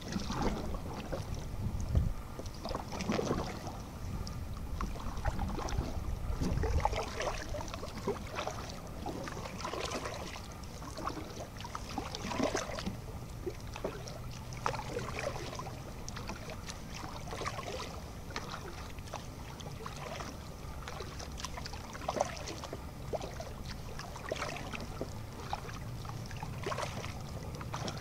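Kayak paddle dipping into calm canal water, with repeated irregular splashes and drips from the blades, over a low rumble of wind on the microphone.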